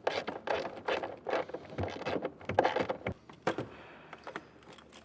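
Socket ratchet working the nut off a tail light mounting stud: a run of short, uneven bursts of clicking for about three and a half seconds, then a few scattered clicks.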